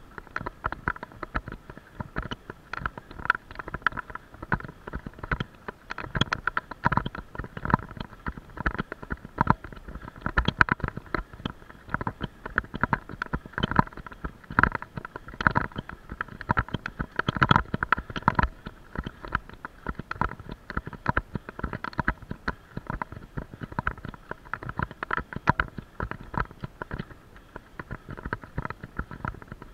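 Constant irregular rattling and knocking, many small clicks a second: the sound of a vehicle-mounted camera shaking in its mount as it rides over a bumpy lane.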